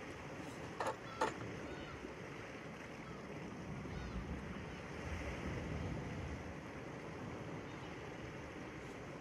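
Sea and wind washing steadily against a rocky shore, with two short, sharp knocks close together about a second in.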